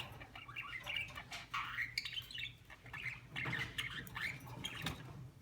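Budgerigar chirping and chattering in a string of quick, short calls, with scattered clicks.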